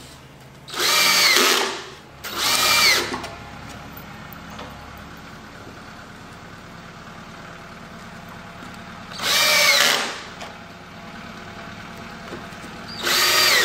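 Cordless drill driving pocket-hole screws into plywood, four short runs of the motor, each rising then falling in pitch: about a second in, near three seconds, near ten seconds and right at the end.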